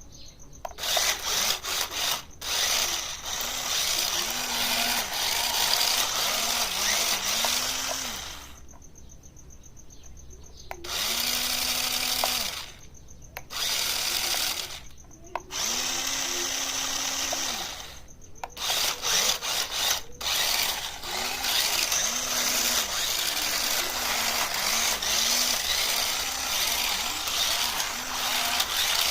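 Small electric drive motors and gears of a battery-powered 4WD RC stunt car running in bursts, with a pitch that rises and falls as the throttle is worked. The motors stop for a second or two several times, the longest break about 9 to 11 seconds in.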